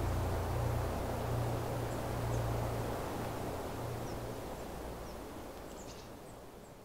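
Outdoor ambience during snowfall: a steady hiss of background noise with a few faint, short, high bird chirps in the second half. A low hum runs underneath and stops about four and a half seconds in. Everything fades out near the end.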